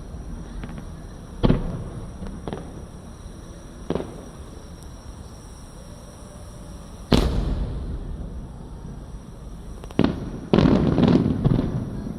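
Aerial fireworks shells bursting in the sky: single sharp booms, each trailing off in a rolling echo, the loudest about seven seconds in, then a dense run of crackling bursts near the end.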